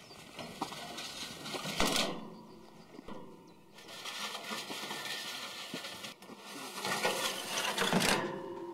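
Outdoor handling noise around a BM-21 Grad rocket launcher: light metallic clinks and knocks as a long metal rod is worked against the launch tubes, over a steady hiss of wind. There is a sharper knock about two seconds in and a louder burst of noise near the end.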